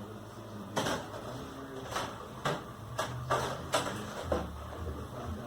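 A series of clicks and clunks from handling a countertop convection toaster oven (its door, wire rack and knobs), over the steady hum of the oven's always-on convection fan.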